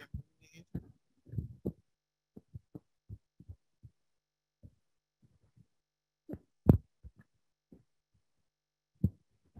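Microphone handling noise: irregular soft thumps and bumps as the microphone is moved and fitted, with a sharper knock about two-thirds of the way through and another near the end.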